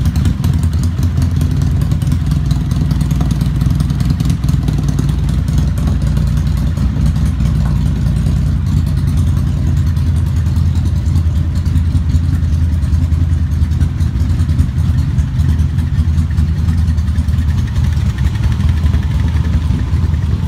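ATV engine running steadily at idle, an even low rumble with no revving.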